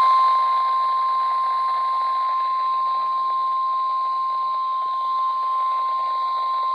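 NOAA Weather Radio warning alarm tone: a single steady high-pitched 1050 Hz tone over radio hiss, received on a weather radio. It is the alert signal that a warning, here a severe thunderstorm warning, is about to be broadcast.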